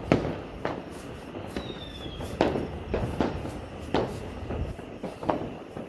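Many fireworks going off across the neighbourhood: irregular sharp bangs every half second or so over a continuous rumble of further bursts, with a brief high falling whistle about two seconds in.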